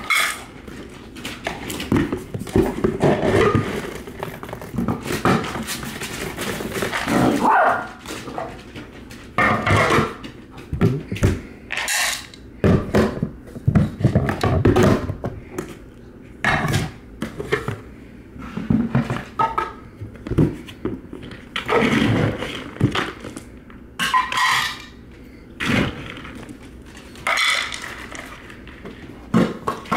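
Several dogs barking in short bursts, excited at feeding time, with the clatter of dry kibble being scooped and poured into food bowls.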